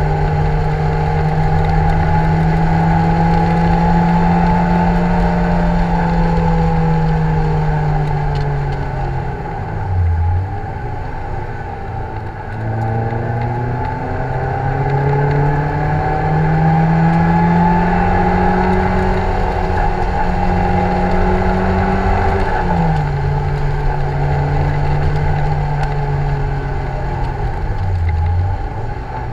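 Lotus Elise 111R's Toyota 2ZZ-GE 1.8-litre four-cylinder at high revs, heard from the open cockpit with wind and road noise: the engine pulls hard with revs climbing slowly. The revs dip briefly twice, about a third of the way in and near the end, and drop sharply once about two-thirds through, a gear change.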